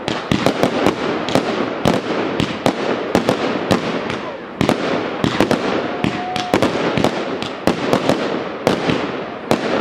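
Aerial fireworks display: shells bursting in rapid succession, with many sharp bangs a second over a continuous crackle.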